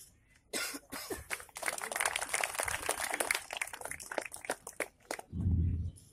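Scattered audience applause: many handclaps starting about half a second in, thickening, then thinning out. A short low cough comes near the end.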